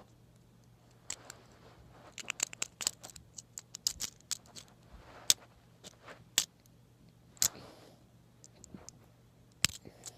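Irregular sharp clicks and small rattles of a TSA combination luggage lock being worked by hand, thick at first and sparser near the end.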